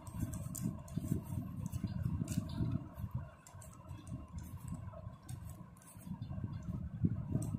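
Ruled notebook paper being folded and creased by hand into a paper rocket: scattered soft crinkles and rustles over low, uneven handling rumble, with a faint steady hum.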